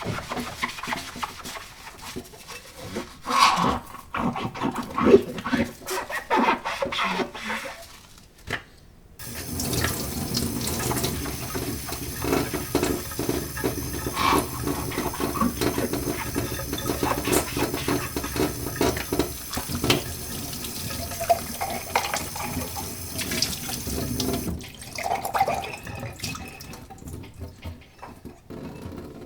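Liquid pouring and splashing: several short pours, then a long steady stream lasting about fifteen seconds, then a few more short pours.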